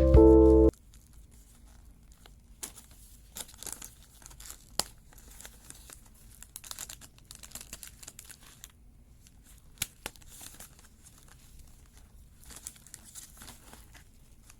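Packaging crinkling and rustling while a cash-stuffing budget wallet is unwrapped and handled, with a few sharp clicks, the loudest about five and ten seconds in. Background music cuts off under a second in.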